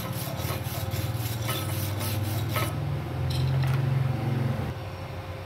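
Steel wire brush scrubbing slag and spatter off weld beads on steel plate, in quick scraping strokes several a second, stopping a little under three seconds in. A steady low hum continues underneath.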